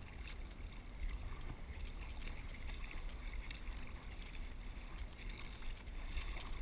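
Water rushing along a surf ski's hull and splashing off the paddle blades as it is paddled, with a steady low rumble of wind on the microphone underneath.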